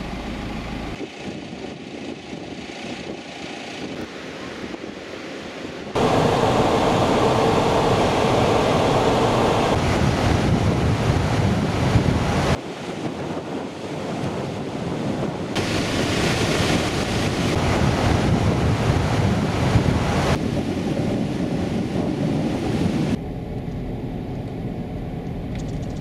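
Wind buffeting the microphone and surf washing in on a beach, with vehicle noise, in a series of abruptly cut clips whose loudness jumps at each cut.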